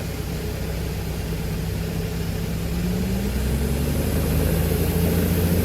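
Glastar light airplane's piston engine and propeller droning steadily in the cockpit, the engine note rising slightly in pitch about two to three seconds in and growing a little louder toward the end.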